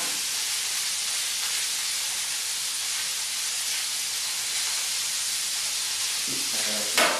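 Steady sizzling hiss of food cooking in a hot pan on the stove. A sharp knock comes near the end.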